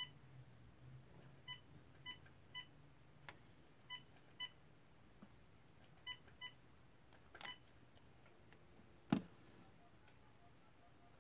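Mobile phone keypad beeps as a phone number is keyed in: about eight short, identical beeps in twos and threes over the first seven seconds. A single sharp thump about nine seconds in.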